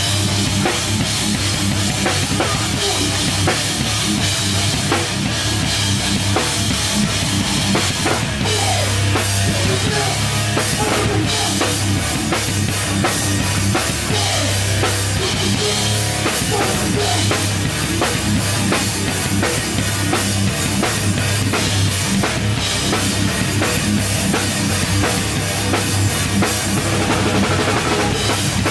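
Hardcore band playing live, loud and continuous, with a full drum kit (bass drum and snare hits) driving the rock instrumentation.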